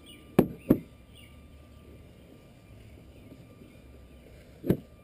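Three sharp knocks against the hard plastic of a toddler's ride-on toy car: two in quick succession about half a second in, one more near the end. Birds chirp faintly in the background.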